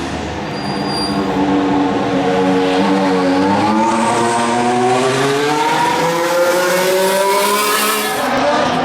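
Mercedes-AMG F1 W08 Formula 1 car's 1.6-litre turbocharged V6 hybrid engine accelerating, its pitch climbing steadily. There is a brief dip in pitch about three and a half seconds in and a drop near the end.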